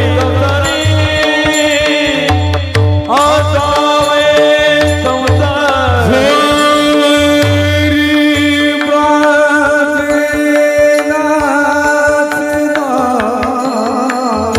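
Varkari kirtan music: a voice singing a gliding devotional melody over a steady held drone, with hand-drum strokes keeping the rhythm.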